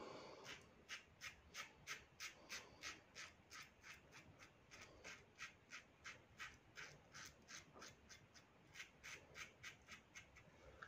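Double-edge safety razor scraping through nearly two days of lathered stubble in short, quick strokes, about four a second, with a couple of brief pauses.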